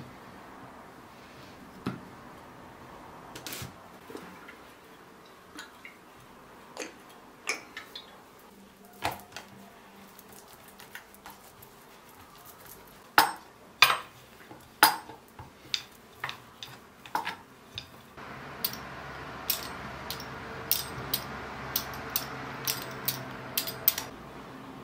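Kitchen clatter: scattered clinks and knocks of dishes and utensils, a few louder ones about halfway through. About two-thirds in, a steady hiss sets in, with quick, regular taps over it.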